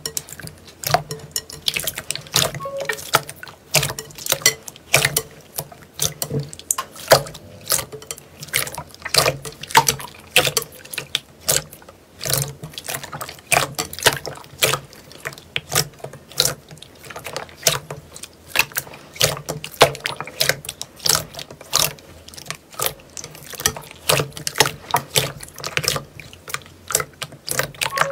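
Hands squishing and kneading thick slime in a bowl: a continuous, irregular run of wet clicks and pops, a few each second.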